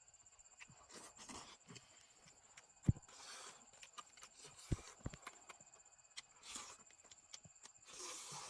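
A frog giving short, hoarse, cough-like calls several times, among scattered clicks and taps.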